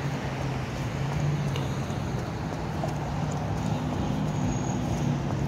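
City street traffic: a vehicle engine running with a steady low tone over general road noise.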